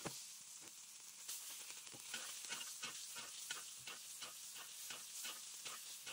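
Foaming butter and a ribeye steak sizzling in a cast-iron skillet, with frequent sharp crackles, as a metal spoon scoops the hot butter and pours it over the steak.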